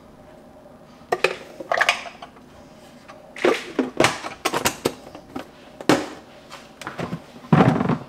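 Plastic formula scoop and baby bottles clicking and knocking as powdered formula is portioned into the bottles and the bottles are set down on a counter: a string of short sharp taps, the loudest near the end.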